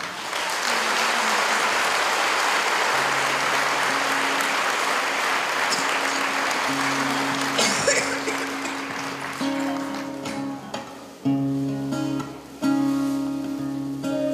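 Audience applauding, with the applause fading after about eight seconds. A live band begins playing under it about three seconds in: held guitar notes that grow louder and fuller near the end.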